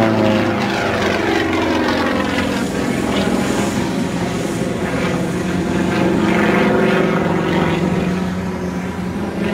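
Propeller-driven aerobatic airplane's engine running steadily in flight, its pitch shifting as the plane turns and comes back around.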